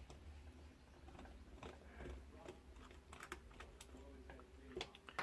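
Faint, scattered light clicks and taps of small screws and plastic parts being handled, over a low steady hum.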